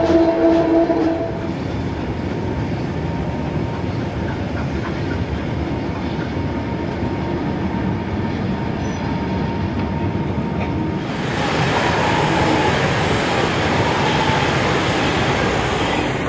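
Heritage train running on rails, the wheels clattering steadily. A train whistle holds one pitched note that stops about a second in. From about eleven seconds in a louder rushing noise of the passing train takes over.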